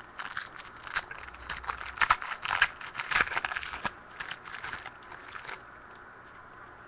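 Plastic wrapper of a pack of 2013 Prestige football cards being torn open and crinkled: a run of irregular crackles that stops about five and a half seconds in.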